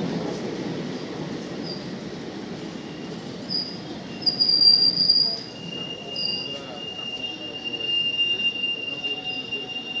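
Passenger coaches of a long express rolling slowly past as the train brakes to a halt, the rumble fading. High-pitched squeals come from the braking wheels: short ones around the middle, the loudest there, then a steady thinner squeal held through the last few seconds.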